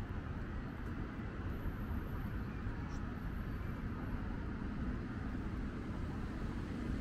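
Steady low rumble of city traffic from the streets along the boulevard, an even background noise with no single vehicle standing out.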